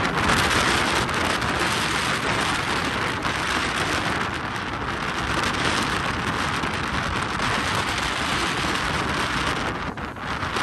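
Steady rushing hiss of storm rain and wind, with an uneven low rumble on the microphone. It dips briefly near the end.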